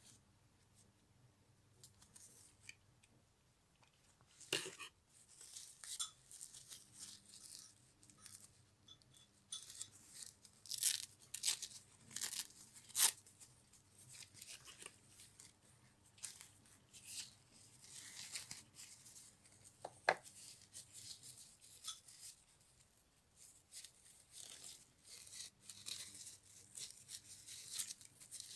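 Hands tearing and crinkling a toy doll's paper and plastic packaging tags: irregular rips, rustles and small clicks, the loudest near 11 and 13 seconds in.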